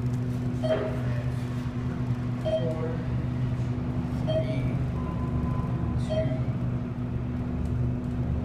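Thyssenkrupp elevator car running, with a steady low hum from its machinery and a short beep that repeats about every two seconds.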